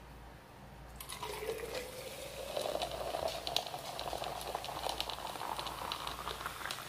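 Liquid poured into a large glass jar, starting about a second in. The splashing tone rises steadily in pitch as the jar fills.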